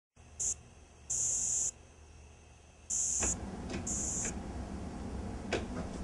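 An insect calling in short, high, buzzy bursts of about half a second, four times, falling silent after about four seconds. From about three seconds in, a louder low rumbling background with a few soft knocks lies under it.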